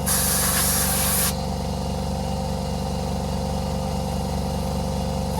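Electric tyre-inflator air compressor running with a steady hum while inflating a moped's front tyre, with a loud hiss of escaping air for about the first second and a brief hiss again at the very end.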